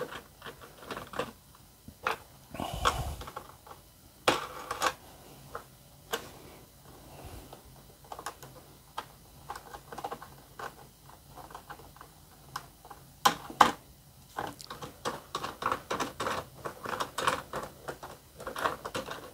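Small metal hardware being worked by hand: clicks and light knocks as nuts and washers come off the bolts on an aluminium bar. A few louder knocks come about four seconds in and again past the middle, and a quick run of ticks comes near the end.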